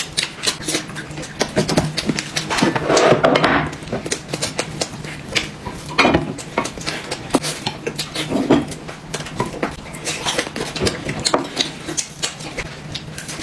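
Utensils clicking and clinking against dishes and bowls as people eat: many short, irregular taps.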